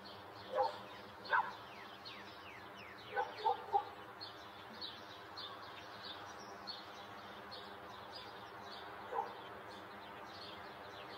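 Birds calling: a steady chatter of many short, high, falling chirps, with a few louder, lower calls standing out, three of them in quick succession about three seconds in.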